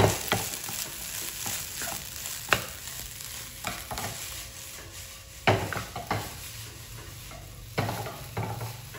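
Wooden spatula scraping and knocking against a wok as garlic and egg fried rice is stir-fried, with a light sizzle underneath. The knocks come irregularly, the sharpest right at the start and about five and a half seconds in.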